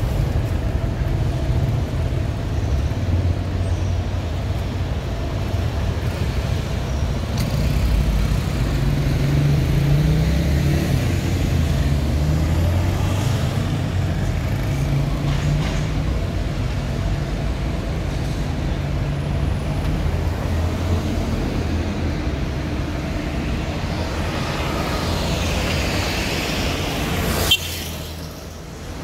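City street traffic: car and motorbike engines running and passing, with one vehicle's engine louder for several seconds about a third of the way in. A sharp click near the end, after which the sound drops lower.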